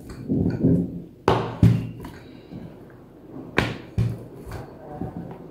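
Wooden rolling pin rolling out stuffed paratha dough on a rolling board: a soft rolling rumble broken by a few sharp knocks as the pin strikes the board, a pair about a second and a half in and another pair past three and a half seconds.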